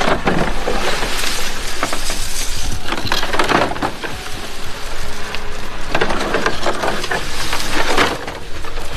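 Rustling and scraping of debris being handled and shifted about, in irregular noisy bursts with a few knocks.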